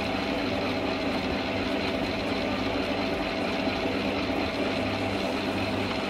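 Kenwood stand mixer running at a steady speed, its motor humming as the beater churns a thick sweet-potato cake batter in the steel bowl.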